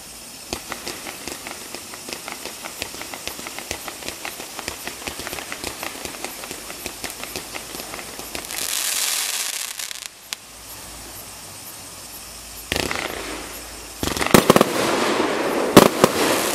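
A 51-shot consumer fireworks cake firing. It starts with a rapid string of shots, several a second, for about the first eight seconds, followed by a short rush of hiss and crackle. After a lull there is a single bang, then a louder volley of crackling with sharp reports near the end.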